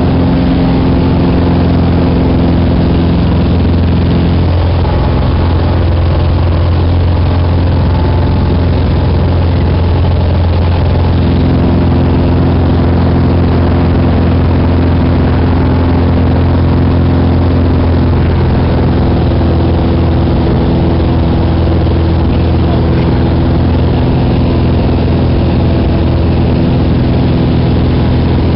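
Single-engine high-wing light aircraft's engine and propeller running steadily, heard inside the cabin: a loud low hum with a few steady tones that shift slightly about four and eleven seconds in.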